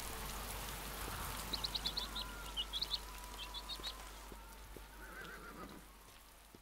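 Steady rain hiss that slowly fades away, with a run of quick, high bird chirps about one and a half to four seconds in.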